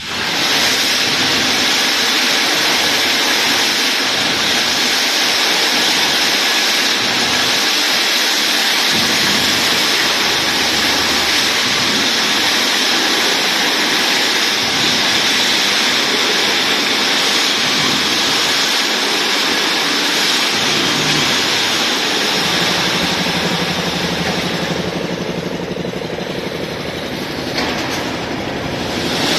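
Steady, dense machinery noise from an automatic welded wire mesh machine running, a continuous hiss-like din with no distinct strokes; a low steady hum joins about two-thirds of the way through.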